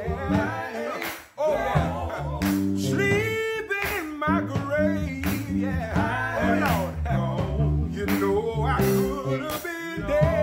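Men singing a gospel song in harmony, with a drum kit keeping a steady beat over a low bass line.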